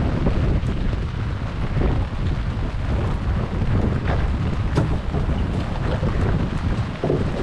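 Steady wind buffeting the microphone on an open fishing boat at sea, a constant low rumble.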